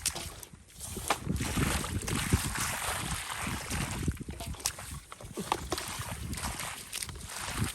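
Irregular sloshing and splashing of shallow water, as hands and feet work through a flooded field to catch fish.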